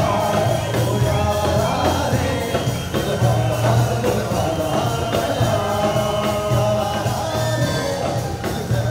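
Male voices singing over a beatboxed rhythm: a lead singer with a group of beatboxers making the beat and backing vocals with their mouths into microphones.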